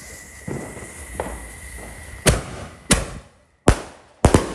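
Consumer fireworks cake firing: a hissing fuse with a few small pops, then five sharp bangs about half a second to a second apart, the last two almost together.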